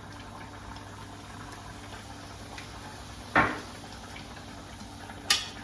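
Beef mince frying in a pan on low heat, a faint steady sizzle. A sharp knock about three and a half seconds in and a click near the end.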